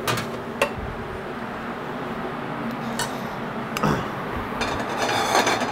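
Metal pans and utensils clinking and knocking as a chef handles them at a gas range: a couple of single clinks, one more about three seconds in, then a busier clatter near the end, over a steady background whir.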